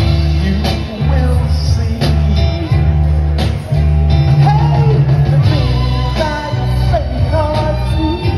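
Live soul band performance: a male singer's vocal over a band with a strong, steady bass line and drums.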